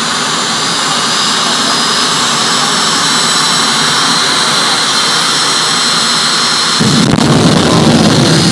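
Jet engine mounted on a show truck running with a steady high-pitched turbine whine. About seven seconds in, the afterburner lights and a long flame shoots from the exhaust, adding a sudden deep rumble that makes it louder.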